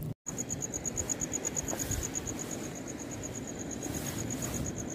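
A cricket chirping steadily: a high-pitched pulsing at about eight pulses a second, over a faint low hiss.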